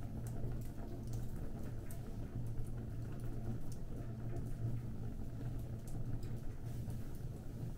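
Fire burning, with scattered small crackles and pops over a steady low rumble.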